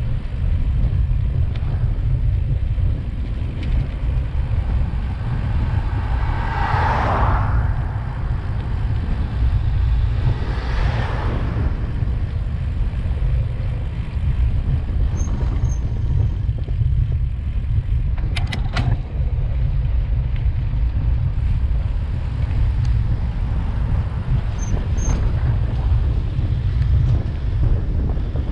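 Cars passing close by on a road, two going by about seven and eleven seconds in, over a steady low rumble of wind and road noise on a bicycle-mounted camera's microphone. A quick cluster of clicks comes about eighteen seconds in.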